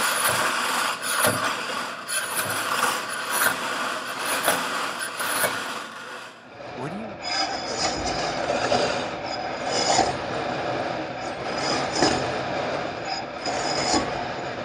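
Metal slinky's coils clattering and jingling against each other and the tabletop as it is pushed back and forth along its length, sending compression waves down the spring. About six and a half seconds in, the rattle turns duller, with a louder clack about every two seconds.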